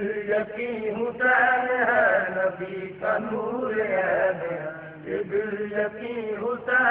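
A voice chanting a devotional recitation in long, wavering phrases.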